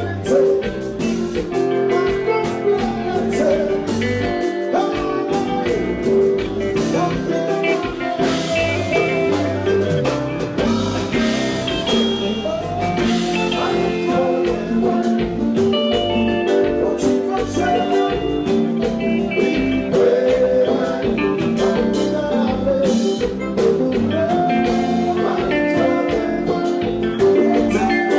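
Live kompa band music at a steady loud level, electric guitar over the band, with a male lead vocalist singing into a microphone.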